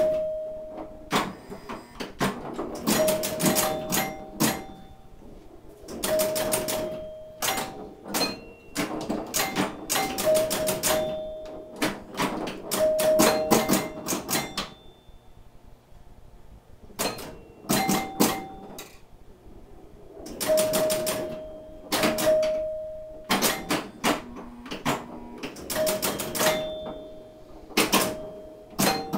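1974 Williams Skylab electromechanical pinball machine in play: bursts of sharp mechanical clacking from its bumpers, flippers, relays and score reels, with chime bells ringing as points score. The action pauses briefly about halfway, then picks up again.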